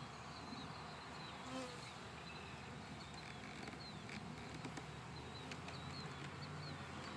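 Honey bees buzzing in a steady hum around an opened hive, with a few light clicks as the wooden frames are handled.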